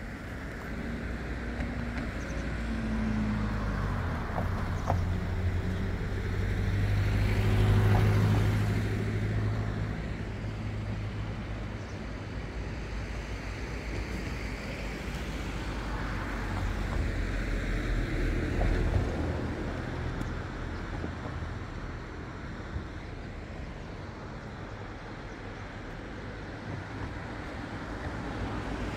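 Road traffic: motor vehicles passing with a low engine hum, the loudest swelling up and fading about eight seconds in, and another passing around the middle.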